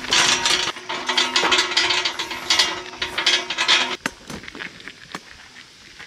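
Metal hand truck rattling and clattering as it is wheeled over gravel. The dense rattle cuts off sharply about four seconds in and goes on more faintly afterwards.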